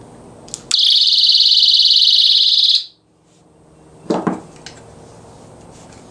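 eAlarm+ personal security alarm sounding a loud, high-pitched tone for about two seconds after a click of its pin being pulled, then cutting off abruptly. A short knock follows about a second later.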